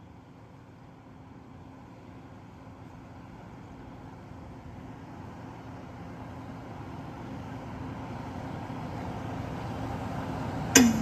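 A steady low hum and rumble, like an engine or generator, growing gradually louder, then loud sharp hits from the band's instruments starting near the end as the sound check begins.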